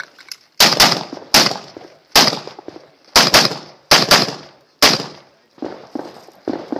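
Ruger Mini-14 semi-automatic rifle firing about nine rapid shots, several in quick pairs, over about four seconds. A few quieter knocks follow near the end.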